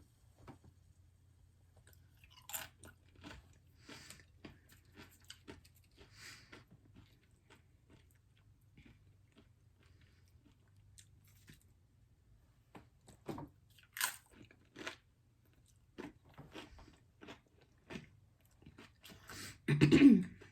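Close-miked chewing and crunching of tacos: a scattering of short crunches and mouth clicks, with a few louder bites a little after halfway and just before the end.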